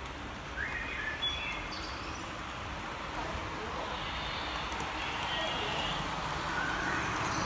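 Indistinct chatter of people in a busy hall over a steady background din, growing slightly louder near the end.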